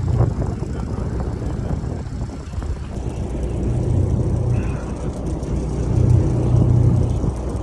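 Boat engine running, a low steady rumble that swells and eases every second or two.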